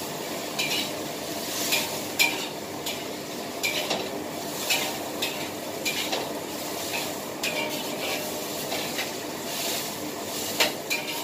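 Spatula scraping and clinking against a wok while stir-frying vegetables, with irregular sharp strikes over a steady sizzle of frying.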